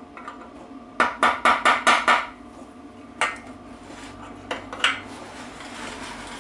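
Soft hammer striking a 36 mm socket to drive an oiled seal into a BSA B25 gearbox casing: a quick run of about six ringing taps, then three single taps spaced out.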